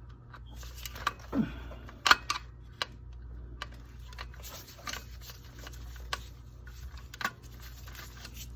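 Scattered sharp clicks and taps of wires, terminals and a hand tool being handled while wiring is disconnected from an aquastat relay box, with a cluster of louder taps about a second or two in and another near the end. Under it runs a steady low hum from a second furnace that is running.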